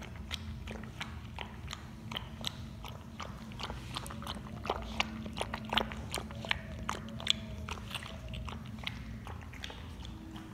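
Labrador puppy eating milky food from a steel bowl: a steady run of wet lapping and chewing clicks, a few a second, irregularly spaced.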